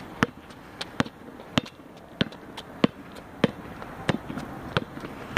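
Basketball dribbled on an asphalt court: sharp, evenly spaced bounces, a little under two a second.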